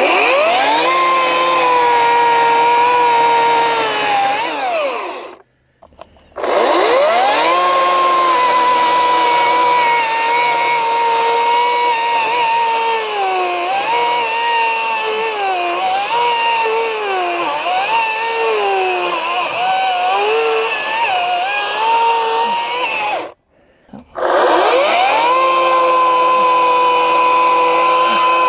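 Ryobi 40V brushless cordless chainsaw cutting into a stump, its electric-motor whine running in three bursts with two short stops in between. Each burst spins up quickly, and in the long middle burst the pitch sags and recovers repeatedly as the chain bogs in the wood.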